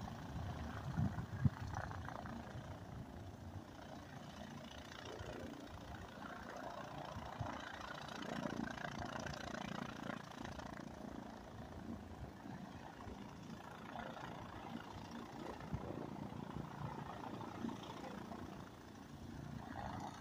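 Cessna 172N Skyhawk's four-cylinder piston engine idling as the plane taxis, heard faintly from a distance as a steady, low hum.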